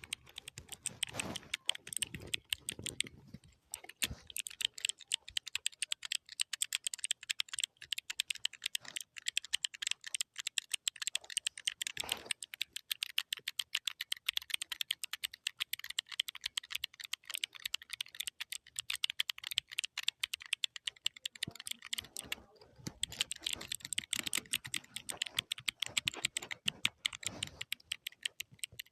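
Computer keyboard being typed on fast: a dense, continuous run of key clicks, with a brief pause about three-quarters of the way through.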